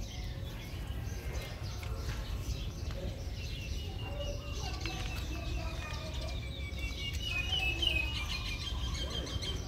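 Small birds chirping in the background, starting a few seconds in, over a steady low rumble.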